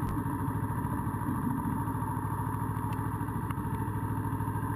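Motorcycle engine idling steadily, with an even rapid pulse.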